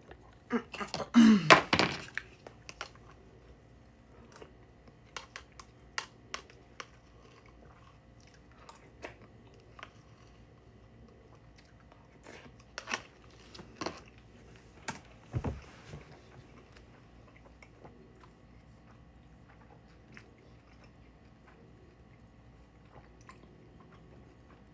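Scattered small clicks and taps close to the microphone, after a louder rustling burst in the first two seconds that carries a brief pitched sound.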